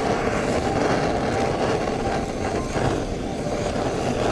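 Handheld butane torch on a cassette gas canister, burning with a steady rushing hiss of flame while it sears and melts the cheese on a burger patty.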